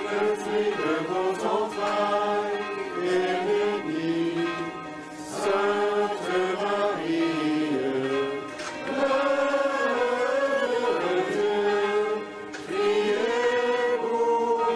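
A crowd of people singing together in unison, slow held notes in phrases broken by short pauses about every four seconds.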